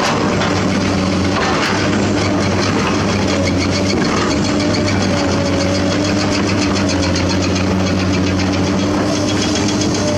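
A 20-ton-class hydraulic excavator's diesel engine running steadily at working revs, heard from the operator's cab, with a steady hydraulic hum and a fast, even ticking, as the bucket digs into broken limestone and swings.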